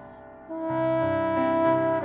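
Slow instrumental music of sustained chords. The chord fades into a brief lull at the start, comes back in about half a second in, and moves to new chords twice after that.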